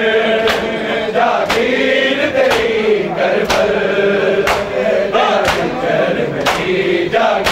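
Men's voices chanting a nauha lament together while the crowd performs matam, bare chests slapped in unison by open hands about once a second.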